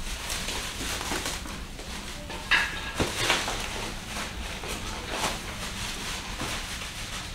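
Clear plastic wrap crinkling and rustling as it is pulled off cardboard boxes, with louder crackles about two and a half to three seconds in.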